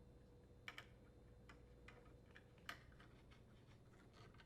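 Faint, scattered clicks and taps of a driver threading screws through a new dishwasher door hinge into the inner door panel, with two slightly louder clicks about a second in and near the three-second mark, over near silence.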